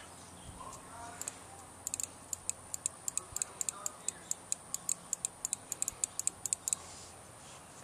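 Rapid, uneven sharp clicking, about five clicks a second for some five seconds, with a faint voice before it starts.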